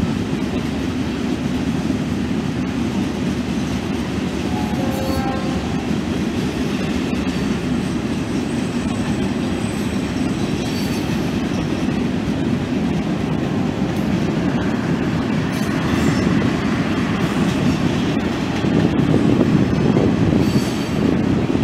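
Freight cars rolling past on the rails: a steady low rumble of wheels and couplings, with a few brief high-pitched wheel squeals, getting a little louder near the end.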